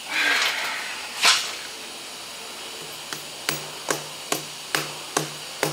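Metal being struck, likely with a hammer, while a pump bracket bolt is worked on: a rough clatter, then a single loud knock, then a run of sharp, evenly spaced taps, about two and a half a second. Each tap leaves a short low ring in the metal.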